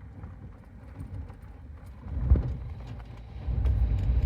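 Low rumble of a moving vehicle with scattered knocks and rattles, as over rough ground. A jolt comes a little past two seconds in, and the rumble grows louder from about three and a half seconds in.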